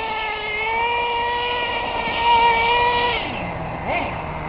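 Team Associated RC10GT's small nitro engine running flat out with a steady high-pitched whine, then dropping back to idle a little after three seconds in. Near the end there is one short blip of the throttle.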